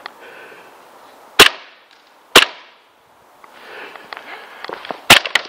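Gas blowback airsoft pistol firing three sharp single shots, two close together in the first half and one near the end.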